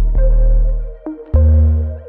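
Background electronic music: a synthesizer track with a deep, sustained bass line, its notes changing every half second or so.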